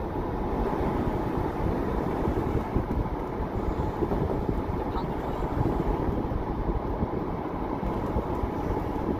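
Steady road and wind noise from a car driving along a road: a constant low rumble of tyres and engine heard from inside the car.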